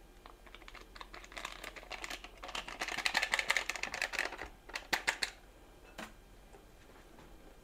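Wire whisk stirring batter in a glass bowl: a dense run of rapid clicks of the wires against the glass. It starts about a second and a half in and stops about five seconds in.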